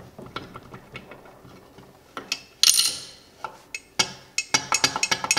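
Metal camshaft gear being worked out of a 1986 Briggs & Stratton 5 hp flathead's crankcase, its teeth clicking and clinking against the crankshaft gear. A louder metallic clatter comes about halfway through, then a quick run of clicks near the end.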